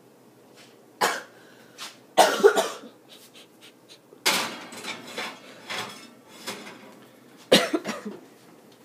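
A person coughing in several harsh bursts, the strongest near the end.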